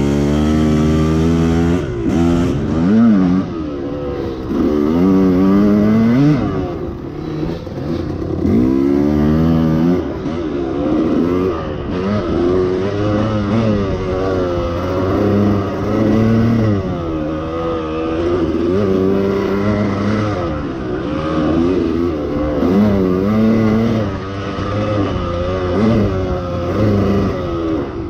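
Two-stroke KTM enduro dirt bike engine revving up and down over and over as the throttle is opened and closed, the pitch rising and falling every second or two.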